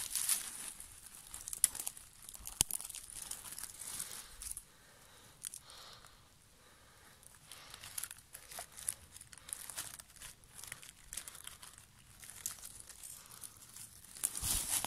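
Dry leaf litter and twigs rustling and crackling close up, in irregular bursts with sharp little snaps, as someone moves a hand through the forest floor. There is a quieter spell in the middle.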